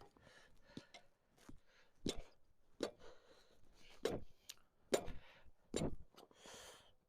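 A series of irregular knocks and clunks, about five louder ones spaced roughly a second apart, as of solid things being handled or set down.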